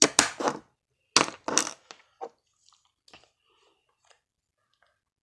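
Two short bursts of rustling handling noise close to the microphone, about a second apart, followed by a few faint clicks and taps.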